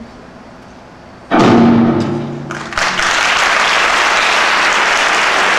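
A sudden loud final chord with a drum hit about a second in, ringing down, then audience applause breaking out about three seconds in and continuing steadily.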